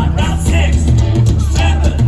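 Live punk rock band playing loudly: driving bass and drums with electric guitar, and a voice singing over them.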